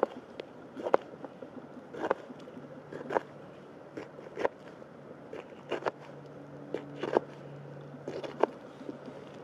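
Kitchen knife slicing a jalapeño pepper into rings on a plastic cutting board: a crisp chop through the pepper onto the board about once a second, eight in all.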